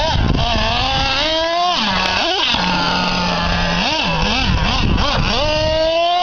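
Traxxas Revo R/C monster truck's nitro engine revving: the pitch climbs for over a second, drops back to a steady idle, blips a few times, then climbs again for about a second near the end.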